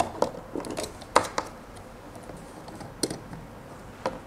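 A handful of short, sharp plastic clicks and taps, spaced irregularly: an Ethernet patch cord's RJ45 plugs being handled and pushed into the ports of an outdoor Wi-Fi access point and a PoE extender.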